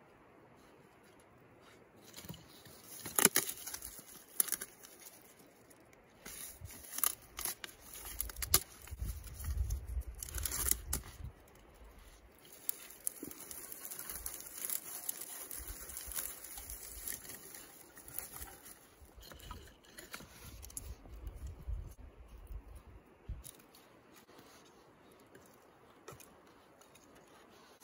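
Split softwood kindling being set down in a steel fire ring, with sharp knocks of wood on wood and on ash. Through the middle comes the dry, crinkly rustle of a twig bundle being laid as tinder. Near the end more thin sticks are stacked crosswise with light clacks.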